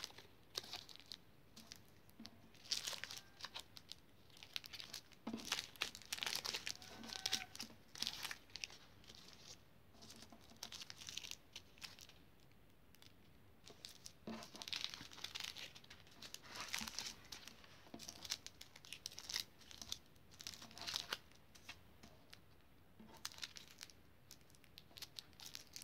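Small plastic bags of diamond painting drills crinkling as they are handled and laid out on a wooden table, in irregular bursts with short pauses between them.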